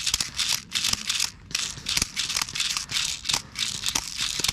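Irregular rattling and crackling noise, a few sharp bursts a second.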